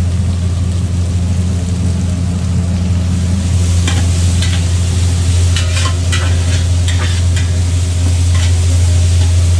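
Sliced onions, green chillies and spices sizzling in oil in a large aluminium pot, the tempering for bagara rice, stirred from about four seconds in with short scrapes against the pot. A steady low hum runs underneath.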